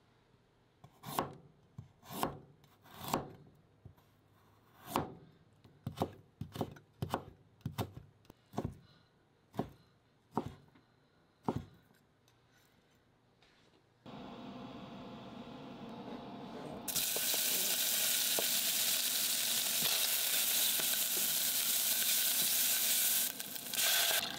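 Kitchen knife chopping carrot and bacon into strips on a plastic cutting board, about a dozen separate strokes over the first half. Then carrot and bacon sizzling as they fry in oil in a stainless pot, the sizzle much louder from about two-thirds of the way in. Near the end, water pours into the hot pot.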